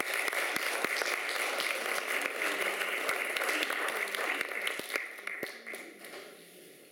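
Audience applauding, a dense patter of many hands clapping that dies away about five or six seconds in.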